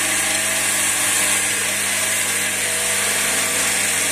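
Wood lathe running while a skew chisel cuts along a spinning ash walking-stick blank: a steady cutting hiss over the lathe motor's low hum.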